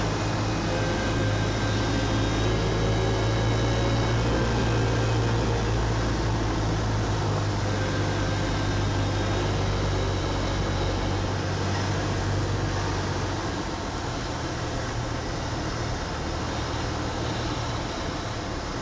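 Single-engine light aircraft's piston engine and propeller droning steadily inside the cabin on final approach. The drone gets lower and quieter about two-thirds of the way through as power is taken off for the landing.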